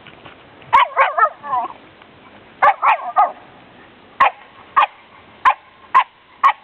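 Black Shiba Inu barking to get a cat to play with her: two quick flurries of high barks and yips, then five single short barks about half a second apart.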